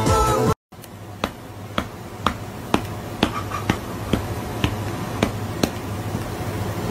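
The music cuts out about half a second in. Then comes a run of about ten sharp snap-like clicks, roughly two a second, over a low steady hum. The clicks stop shortly before the end.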